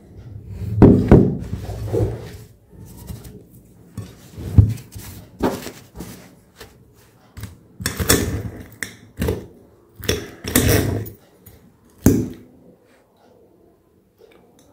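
A serrated knife and fork cutting a crisp breaded cutlet on a ceramic plate: scrapes and clinks of cutlery on china and the crackle of the breaded crust, in a string of separate bursts with short pauses. The loudest clatter comes about a second in.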